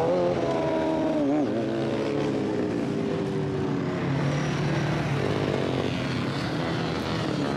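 Engine running steadily, its pitch wavering up and down for a second or so, then sliding slowly lower, with a low hum underneath.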